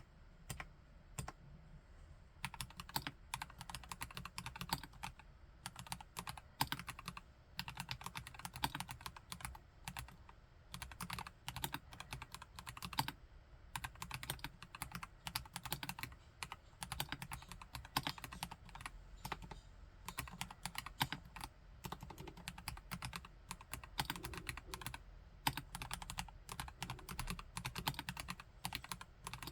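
Typing on a KLC Nori Spring Rider, a plastic-cased prebuilt mechanical keyboard with Gateron Yellow Pro V2 linear switches. A few scattered keystrokes at first, then fast, continuous typing with a few short pauses.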